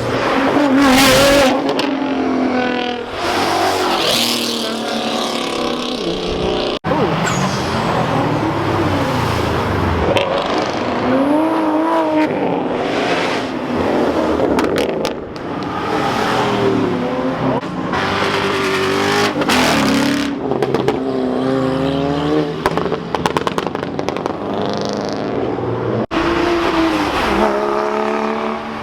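Several performance cars accelerating hard one after another, engines revving up and down. The engine pitch rises and falls repeatedly, with a rush of noise as cars pass, and a few abrupt cuts between clips.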